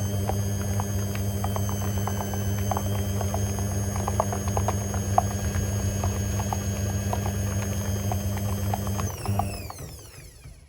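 Hoover H3W69TME washing machine running with a steady motor whine, a low hum and many light clicks; about nine seconds in the whine falls in pitch and dies away as the drum slows to a stop.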